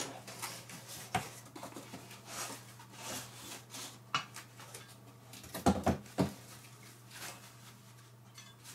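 Packaging being handled: a cardboard box opened and a plastic-bagged, foam-wrapped metal target slid out and rustled, in a series of short crinkles and scrapes. Two heavier knocks come about two-thirds of the way through, over a faint steady low hum.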